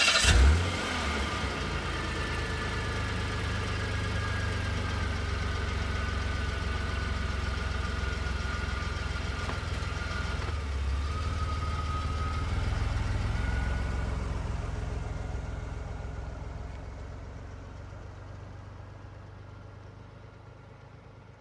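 Car engine that starts abruptly and runs steadily, with a thin whine slowly falling in pitch. Its level rises briefly about two-thirds of the way through, then the engine sound fades away gradually.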